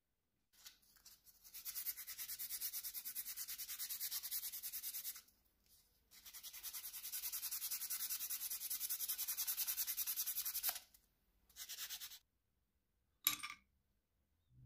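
Sandpaper rubbed by hand on wood in quick back-and-forth strokes, about six a second, in two long runs with a short pause between and then a brief third run. A single sharp knock comes near the end.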